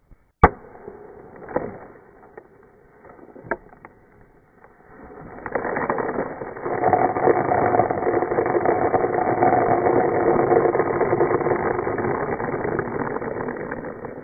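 A single .410 shot from a Rossi Circuit Judge about half a second in, hitting a shaken two-liter soda bottle. A few seconds later the punctured bottle sprays out its fizzing soda with a loud, steady hiss and a whistling tone, which tapers off near the end.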